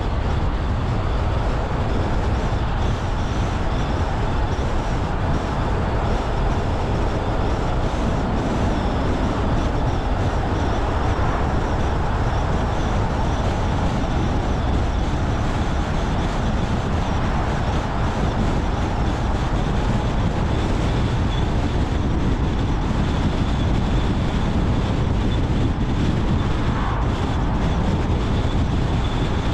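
Car driving steadily along a road: constant engine and tyre noise, with a faint high steady whine.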